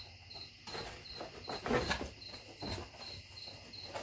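Cricket chirping steadily, a high pulsed note about two to three times a second, with a few soft clicks and rustles of handling.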